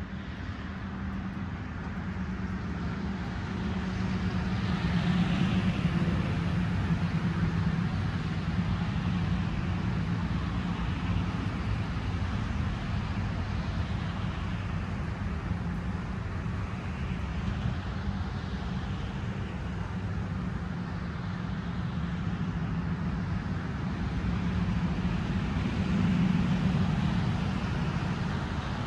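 Steady low rumble of vehicle noise, swelling about five seconds in and again near the end.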